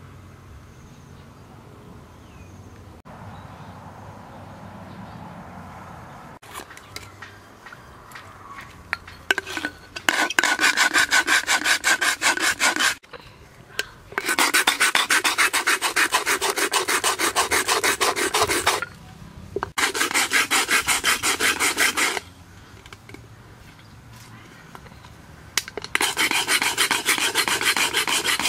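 An aluminium soft-drink can held upside down and scraped rapidly back and forth against a flat sharpening stone, grinding at its top rim to open it. The fast gritty scraping comes in four bouts, starting about a third of the way in, with short pauses between.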